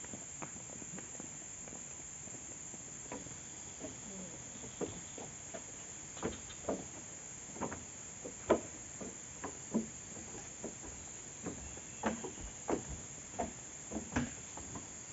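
Steady high-pitched chorus of insects, with scattered irregular knocks and crackles over it, louder and more frequent in the second half.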